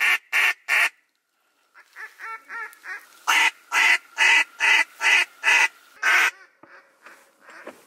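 Duck call blown in a series of loud, evenly spaced quacks, with a run of softer, quicker notes in the middle, calling to ducks flying overhead.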